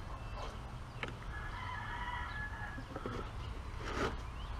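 A rooster crowing once, a call lasting about a second, starting a little after one second in. Light knocks sound around it as the plastic aFe intake tube is worked onto the throttle body.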